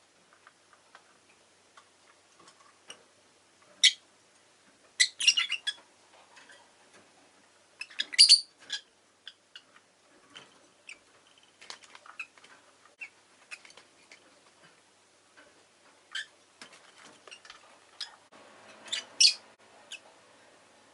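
Rosy-faced lovebirds giving short, sharp chirps at irregular intervals, with faint light clicks and taps in between.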